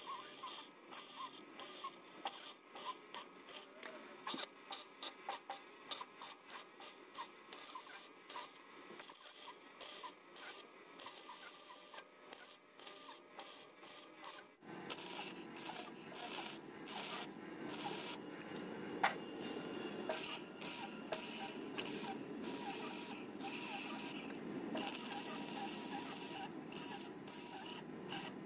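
Electric arc welding on square steel tubing: a crackling, sizzling arc. It runs in many short starts and stops for about the first half, then changes suddenly about halfway through to a longer, steadier run.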